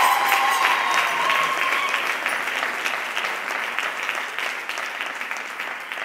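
Theatre audience applauding, with a high held cry over the clapping that stops about two seconds in. The applause dies away steadily.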